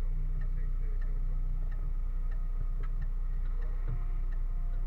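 A relay ticks evenly about twice a second, a vehicle flasher relay for the turn signals or warning lights, over the fire engine's steady engine rumble heard inside the cab.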